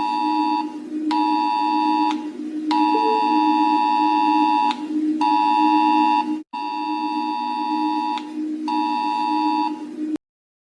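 Emergency alert alarm tone: a steady low drone with a higher two-note beep pulsing on and off over it in uneven stretches. It all cuts off suddenly about ten seconds in.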